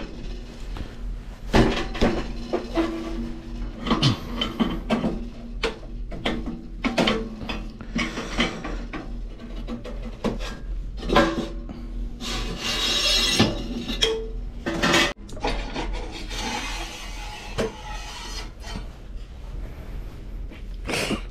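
Metal parts and hand tools knocking, clanking and scraping against each other during hands-on disassembly of an espresso machine, with a stretch of rasping scraping a little past the middle.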